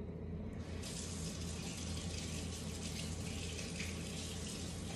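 Water running steadily from a kitchen tap, turned on about a second in, over a steady low hum.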